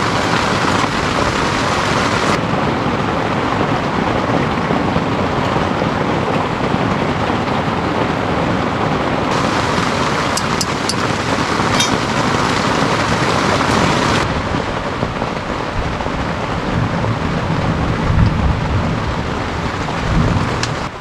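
Heavy downpour pelting a tent flysheet: a dense, steady hiss of rain. A low rumble swells in the last few seconds.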